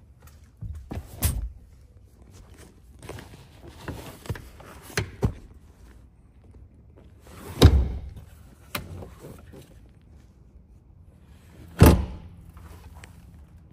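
Scattered knocks and thuds of handling inside a pickup truck's cab, with two heavy thuds, one about halfway through and one near the end.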